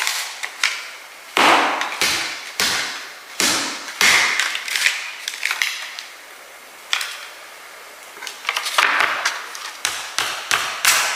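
Irregular knocks and taps of kitchen utensils against dishes and the counter while eggs and sausage are mixed, a few at a time with a quieter stretch in the middle.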